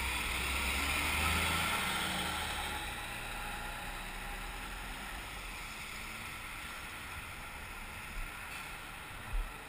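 Motorcycle ridden in traffic: its engine runs louder for the first two seconds or so, then eases off under a steady rush of wind and road noise. Two brief low thumps near the end.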